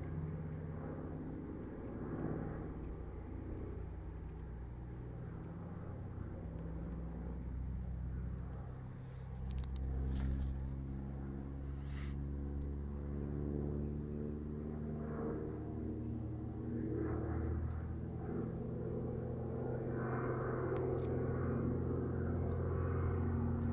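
Distant drone of a Douglas DC-3 (C-47A) flying past, from its two Pratt & Whitney R-1830 Twin Wasp radial engines. The drone is steady and grows slightly louder toward the end.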